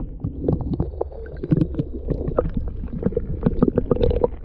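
Sea water heard from under the surface by a submerged action camera: a muffled low rumble of moving water with many small clicks and pops.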